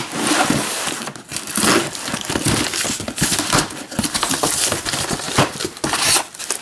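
Packing tape being torn off a cardboard box and the cardboard flaps pulled open: a run of rasping tearing and crinkling, with cardboard scraping and rustling.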